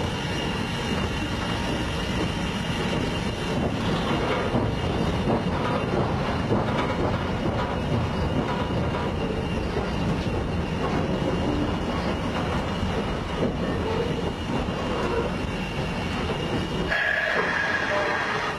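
Steam locomotive #58 running, heard from inside its cab: a steady rumble and rattle, with wheels clicking over the rail joints. Near the end the rumble drops away and a higher steady tone comes in.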